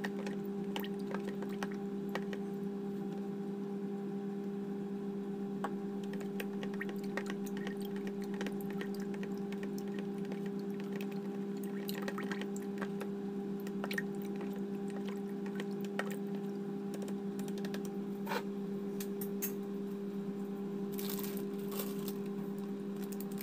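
A metal spoon stirring thick pandan-coloured kue lapis batter in a plastic bowl: soft wet squishing with light scattered clicks of the spoon against the bowl, over a steady hum.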